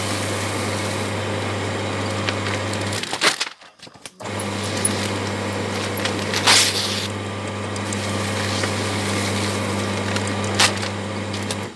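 Electric paper shredder running, its motor humming steadily as the cutters shred paper flyers, with a few sharp louder crunches. It stops about three seconds in and starts again about a second later, running until just before the end.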